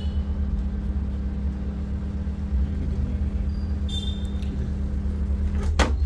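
Bajaj microwave oven running on full power, a steady electrical hum from its high-voltage transformer and freshly replaced magnetron as it heats a cup of water, a sign that the repair works. Near the end a sharp click as the door release is pressed, and the hum drops.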